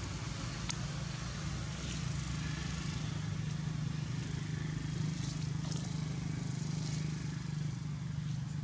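Steady low hum of an engine running, with a few faint clicks.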